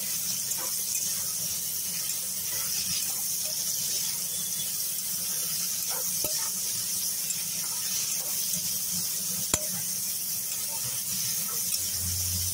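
Cut papaya, potato and raw banana frying in mustard oil in a kadai, a steady sizzle, while a spatula stirs and scrapes them. The spatula knocks sharply against the pan twice, the second knock louder.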